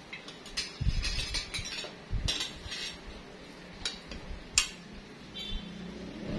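Spoons and forks clinking and scraping on ceramic plates as rice is served, in scattered sharp clinks with a few dull knocks against the table; one clink rings briefly near the end.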